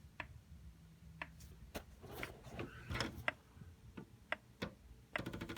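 Faint, irregular clicking from inside a Carver PM-1200 power amplifier, about a dozen single clicks with a quick run of them near the end. It is a fault symptom in a unit that goes straight into protection at power-on.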